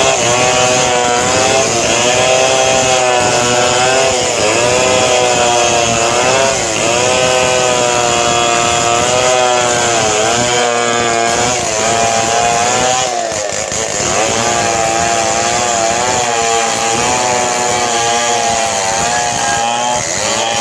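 Two-stroke chainsaw running at high revs while cutting gmelina wood. Its engine pitch keeps dipping under load and recovering.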